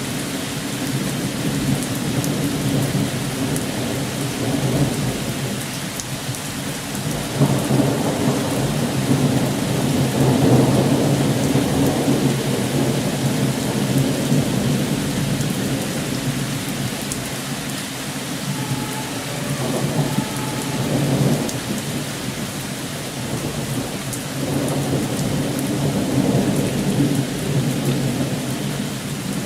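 Heavy thunderstorm: rain falling steadily with thunder rumbling several times, the loudest rumble about ten seconds in.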